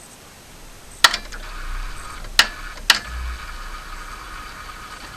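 A failed start attempt on a VAZ-2111's 16-valve engine: a sharp click about a second in and two more a second and a half later, with a steady whine and low hum between them, and the engine does not catch. The owner blames an oxidized, poorly contacting battery terminal that is starving the starter.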